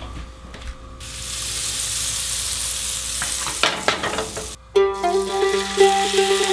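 Butter and olive oil sizzling in a hot frying pan, a steady hiss that starts suddenly about a second in. Background music with sustained notes comes in about three-quarters of the way through.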